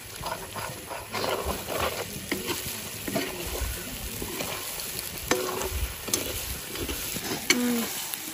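Duck meat and potato pieces sizzling in hot oil in a wok while a metal spatula stirs them, scraping and clicking against the pan. The potatoes are being fried before the rest of the curry goes in.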